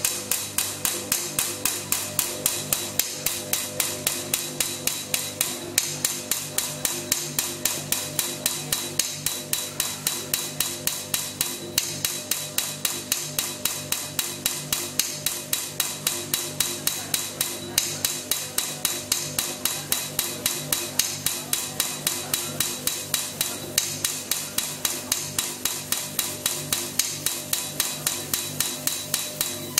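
Live electronic music played from a laptop and a button controller: a steady train of sharp clicks, about four a second, over a low sustained drone, the loop changing slightly about every six seconds.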